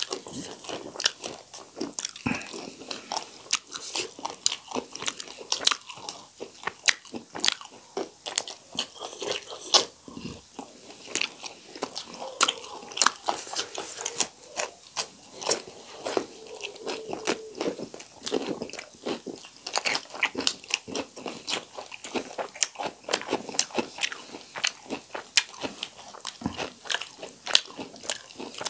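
Two people chewing and biting into fried whole chicken and raw cucumber slices close to the microphone: a dense, unbroken run of crisp crunches and wet chewing.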